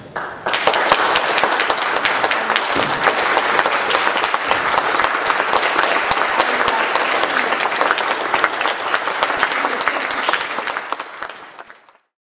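Audience applauding, a dense spread of clapping that starts about half a second in, fades near the end and cuts off.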